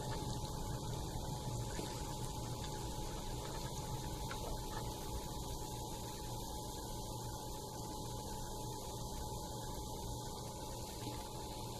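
Steady electrical mains hum with a faint even hiss underneath.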